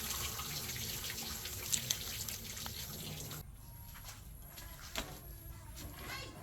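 Water running and splashing for about three and a half seconds, then quieter with a few small knocks and drips.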